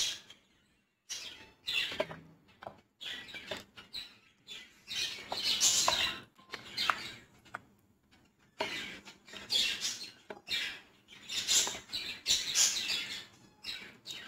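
Red-eared slider snapping up floating food pellets at the water surface: irregular splashes and gulps with short pauses between them.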